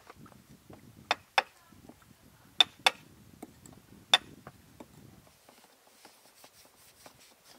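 A caulking mallet striking a caulking iron to drive hemp oakum into an open seam of a wooden boat hull. It lands five sharp knocks, mostly in pairs, with lighter taps between them.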